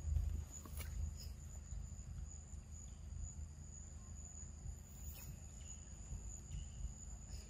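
Insects trilling steadily in one high, unbroken tone over a low rumble, with a soft thump right at the start and a few faint clicks.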